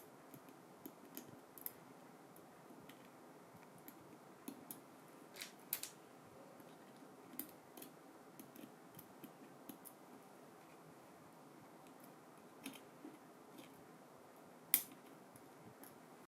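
Sparse light clicks and taps of small parts being handled during hands-on work, over a faint steady hiss; the sharpest clicks come right at the start and about 15 seconds in.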